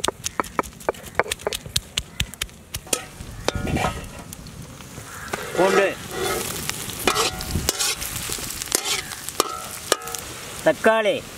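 Stone roller knocking against a granite grinding stone (ammi kal) as garlic is crushed, a quick run of sharp knocks. After about three seconds it gives way to crushed ginger and garlic hitting hot oil in an iron kadai, sizzling and frying with shallots and green chillies while a ladle stirs.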